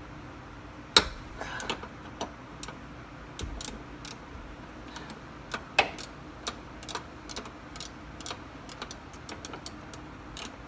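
Ratchet wrench clicking in short strokes as it backs out a door hinge bolt, with a sharp metal knock about a second in.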